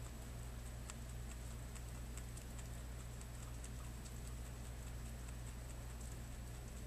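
Rabbit chewing a piece of willow: faint, irregular crunching clicks over a steady low hum.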